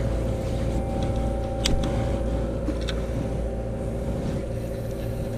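Fishing party boat's engine running steadily: a low rumble with a steady hum over it, and a few faint clicks.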